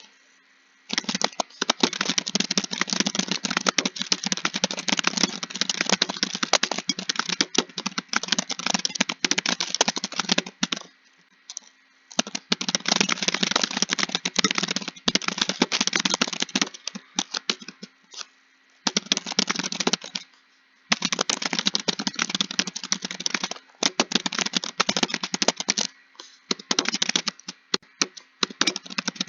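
Rapid typing on a computer keyboard: long runs of fast keystrokes broken by short pauses, as when copying out text.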